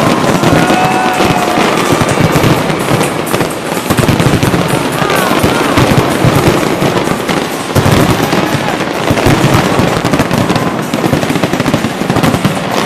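Large fireworks display going off in quick succession: dense, continuous bangs and crackles.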